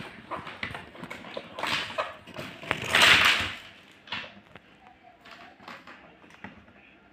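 A cardboard toy-sand box being handled and tipped out, its contents (plastic molds and a bagged block of kinetic sand) knocking and sliding onto a tabletop, with scattered clicks and a loud rustling burst about three seconds in, then only light taps.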